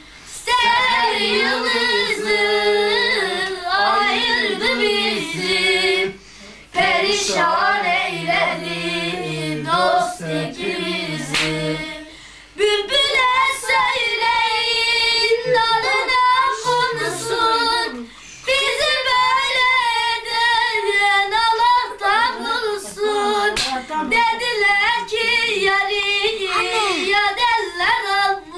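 Unaccompanied singing of a Turkish folk song (türkü) in long, ornamented phrases with short breaks between them. The later phrases are sung by a boy in a high voice, and the first phrases sit lower in pitch.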